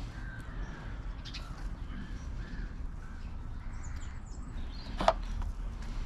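Small handling noises of a carburettor and its rubber fuel line being worked by gloved hands, with one sharp click about five seconds in, over a low steady rumble of wind and faint bird calls.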